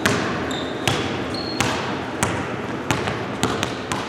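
Basketball dribbled hard on a hardwood gym floor, each bounce a sharp smack with a hall echo, at a steady pace that quickens into several quick bounces near the end as the player works a crossover.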